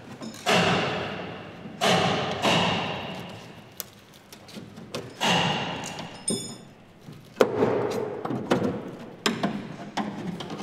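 A metal tool knocking against the inside of the BMW 507's aluminium body panel at the wheel arch: about nine irregular blows, each leaving the panel ringing for about a second, with a brief high clink midway.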